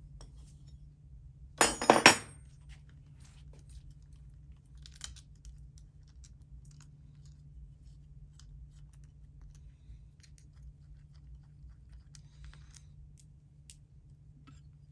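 Metal hand tools and fasteners clicking and rattling as a homemade metal adapter plate is fitted to a two-stroke engine's intake for a crankcase pressure test. A loud burst of rapid rattling clicks comes about two seconds in, followed by scattered light ticks and taps, over a steady low hum.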